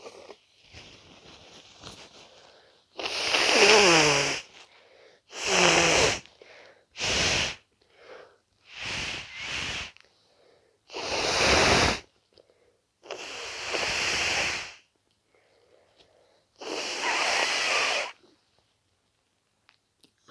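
A person with a congested head cold blowing their nose hard, about seven long blasts in a row, the first few with a falling honk as the blocked nose clears.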